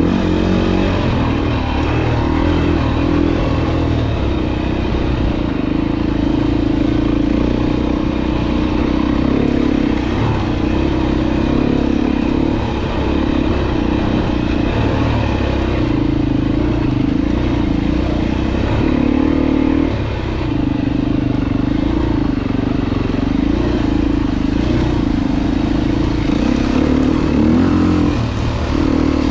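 Dirt bike engine running as the bike is ridden, its note rising and falling with the throttle.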